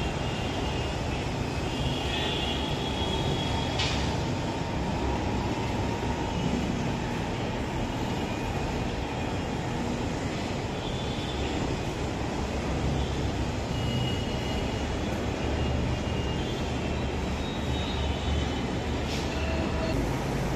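Steady low rumbling background noise with faint high squeals, and a sharp click about four seconds in and again near the end.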